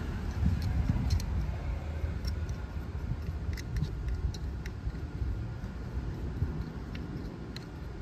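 Faint scattered clicks and taps of a brush applicator dabbing grease onto a battery terminal clamp, over a steady low rumble.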